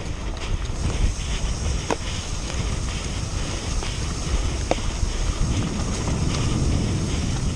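Mountain bike descending a dirt trail at speed: wind buffeting the camera microphone over the rumble and rattle of the tyres and bike on rough ground. Two brief squeaks cut through, about two and five seconds in.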